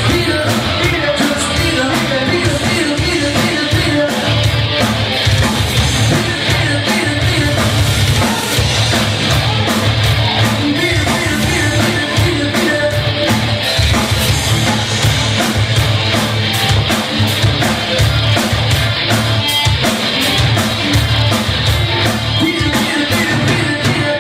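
Live rock band playing loud: electric guitar, bass guitar and drum kit, with a singer's voice and a steady, fast beat of cymbal strokes.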